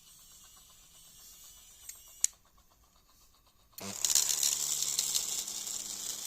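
Small motor-driven drilling mechanism of a homemade model: light ticking and a sharp click a little after two seconds, then about four seconds in the motor starts and runs with a loud, steady whirring hiss over a low hum.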